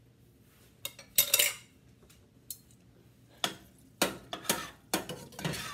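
A spoon stirring macaroni in a stainless steel pot, clinking and scraping against the metal. There are a couple of loud clanks about a second in, then strokes about twice a second from about three and a half seconds in.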